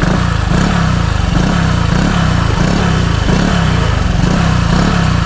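Honda Click scooter's single-cylinder four-stroke engine running through a Sun Racing Silent Killer aftermarket power pipe, its note rising and falling about twice a second as the throttle is blipped.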